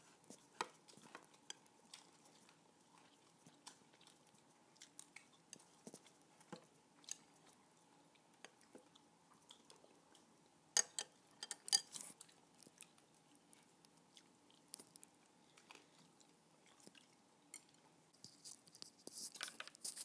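Close-up chewing and crunching of fried salted egg chicken wings, with small clicks of chopsticks on bowls and plates, and a louder run of crunches about halfway through. Near the end, a high rustling hiss.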